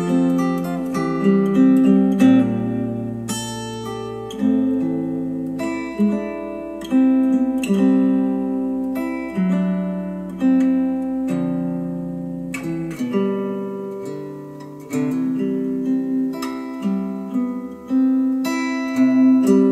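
Acoustic guitar music played back through a pair of bookshelf speakers driven by an Audiolab 6000A integrated amplifier. The playback starts on KEF Q350s and switches to Polk Audio R200s about two-thirds of the way in, and a steady low hum under the music stops at the switch.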